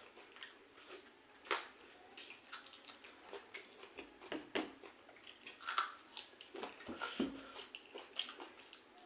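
Close, wet eating sounds: chewing and smacking of pakhala, cooked rice soaked in water, with irregular small clicks and squelches.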